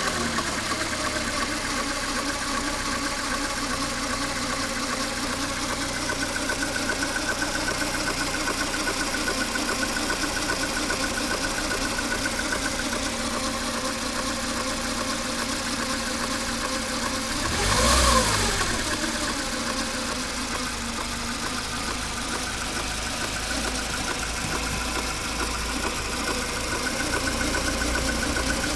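Mercedes-Benz A 140 (W168) 1.4-litre four-cylinder petrol engine running at idle with an unhealthy noise, which a mechanic puts down to the timing chain or its tensioner. About two-thirds of the way through it is revved once briefly, the pitch rising and falling back to idle.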